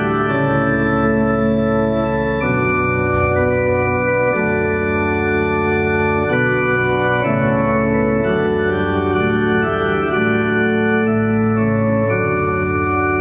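Organ voice of a Yamaha Clavinova digital piano playing a hymn introduction in sustained chords that change every second or two, at an even volume.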